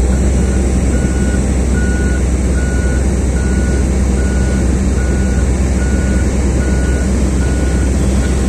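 Komatsu PC2000 mining excavator's engine running with a steady low rumble, while an evenly repeating warning beeper sounds a little more than once a second: the alarm that goes with the powered access ladder being raised.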